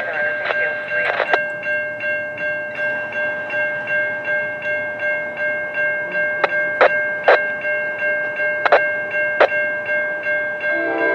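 Railroad grade-crossing bell ringing steadily, about one and a half strokes a second, with a few sharp clicks in the middle. Near the end the approaching train's horn begins to sound, a chord of several tones.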